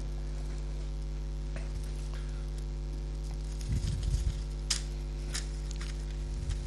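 Steady electrical mains hum with a few faint clicks and rustles, and a brief low murmur about midway.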